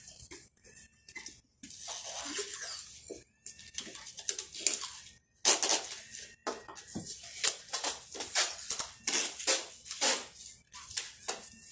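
Clear packing tape being pulled off the roll and stuck onto a cardboard box: a run of short, hissing tape pulls of varying length with brief gaps between them, the loudest about halfway through.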